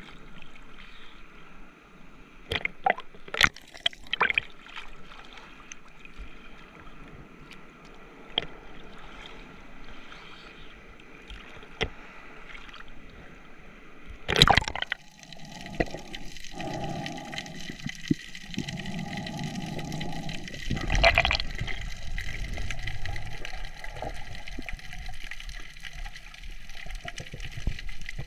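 Sea water sloshing and gurgling around the microphone in waves on a reef, with scattered knocks in the first half and a loud splash about halfway through, after which a steadier rushing of water continues.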